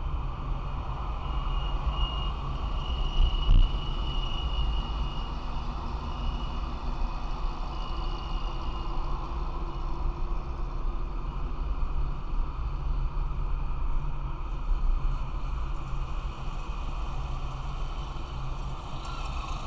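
Steady rumble of a car driving along a city avenue, engine and tyre noise heard from inside the cabin, with a brief thump about three and a half seconds in.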